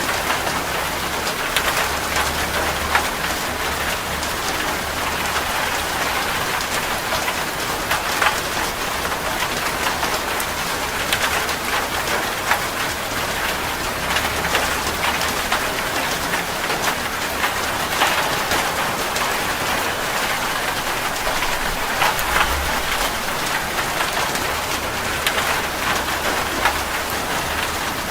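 Heavy rain drumming on a metal roof: a dense steady hiss full of small sharp drop ticks, with a low rumble coming and going underneath.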